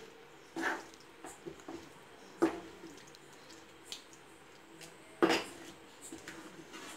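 A wooden spatula stirring thick spinach gravy in a metal frying pan: scattered scrapes and soft knocks against the pan, with three louder strokes spread through.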